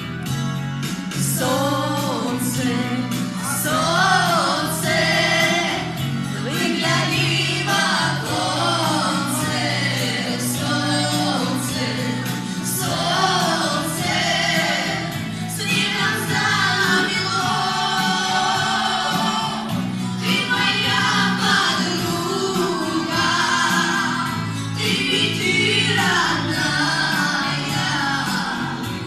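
A boy singing a Gypsy (Romani) song in wavering, vibrato-laden phrases over a steady instrumental accompaniment.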